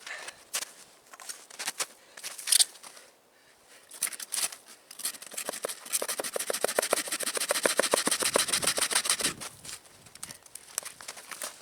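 Small hand saw cutting through a dry, dead tree trunk: a quick, even run of rasping strokes through the middle. Before it come scattered knocks and cracks, one louder than the rest.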